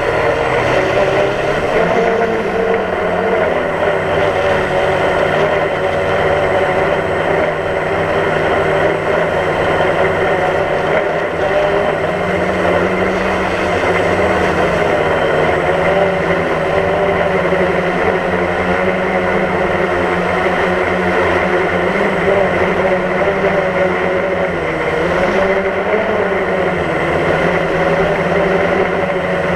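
DJI Phantom quadcopter's motors and propellers whirring steadily, heard from the GoPro mounted on the drone. Several pitches sound together and waver slightly up and down as the motors adjust speed in flight.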